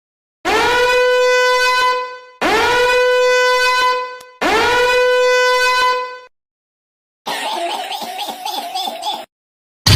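A horn sound effect blown three times: three identical long blasts, each about two seconds, sliding up into one held pitch. After a short pause comes a different, rougher sound lasting about two seconds.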